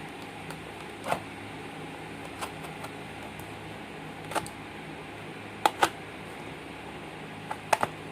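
A parcel being handled and opened by hand: scattered sharp clicks and crinkles of packaging at irregular moments, the loudest a pair about six seconds in, over a steady low hum.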